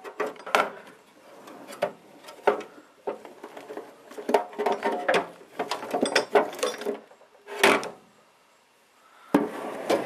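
Metal tool chest drawers being shut and opened, with tools inside clinking and knocking together in a series of sharp clicks. A short quiet spell comes near the end, followed by a loud knock.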